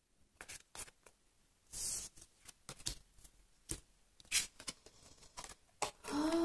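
Tarot cards being dealt from a deck and laid on a table: scattered soft clicks and brief slides of card stock, with quiet gaps between them.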